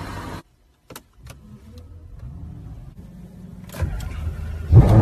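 A couple of sharp clicks from a car's start button, then a faint low engine hum as the engine comes to life. Near the end a Ferrari engine starts with a sudden loud flare of revs and settles into a steady low idle.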